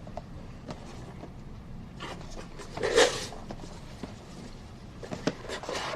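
Quiet rustling and handling noises of gifts being unwrapped and looked at, with a louder rustle about three seconds in and a few soft clicks and rustles near the end.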